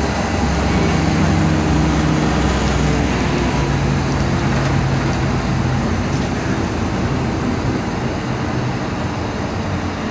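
Running noise inside a MAN Lion's Classic CNG city bus on the move: engine, drivetrain and road noise, including the noisy differential. A steady low hum sits under the noise for about the first half, then fades, leaving rougher road noise.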